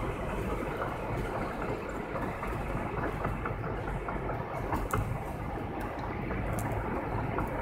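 Road noise inside a moving car's cabin: a steady low rumble of tyres on pavement and the engine, with a few faint ticks.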